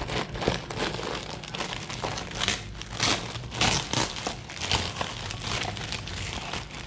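Food packaging crinkling and rustling in irregular crackles as a delivered breakfast is unwrapped and handled by hand.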